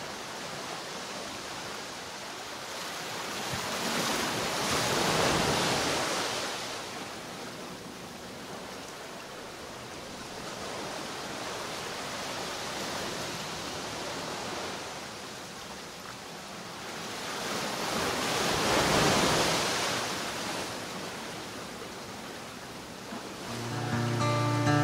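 Ocean surf: a steady wash of waves that swells up twice, about five seconds in and again near twenty seconds, each swell rising and falling over a few seconds. Acoustic guitar music comes in near the end.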